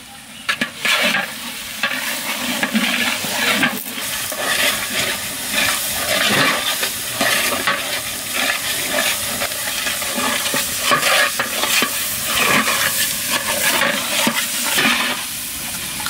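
Spice paste sizzling as it fries in oil in a large aluminium pot, with whole cinnamon and cardamom just added. A long metal spatula stirs it, scraping the pot in repeated, irregular strokes.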